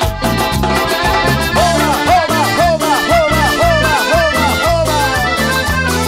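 Live band music: an instrumental passage with a steady dance beat under a lead melody that plays a run of short sliding, arching notes through the middle.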